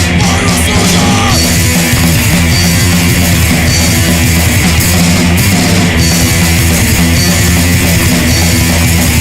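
Punk rock band playing loud and hard: distorted electric guitar, bass guitar and drum kit driving together.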